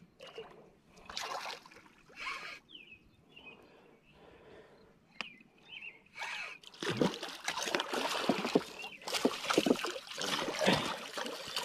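A hooked striped bass thrashing and splashing at the water's surface. The splashes are sparse at first and become loud and repeated from about seven seconds in.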